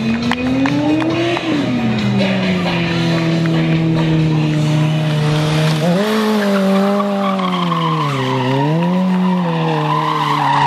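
Motorcycle engine held at high revs during a stunt, with its rear tyre squealing. The pitch climbs, drops and holds, then jumps about six seconds in and swings up and down as the throttle is worked.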